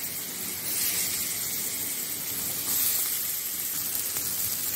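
Chopped onion frying in melted butter with carom seeds in a pan, giving a steady sizzling hiss.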